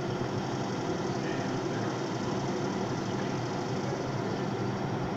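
Steady hum of a subway train standing at the platform with its doors open, from its air-conditioning and auxiliary equipment running while it waits to depart.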